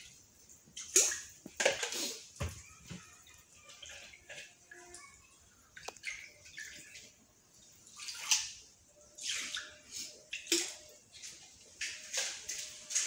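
Water splashing and sloshing in a fish tank as liquid is poured in from a cup and the surface churns, in irregular separate splashes.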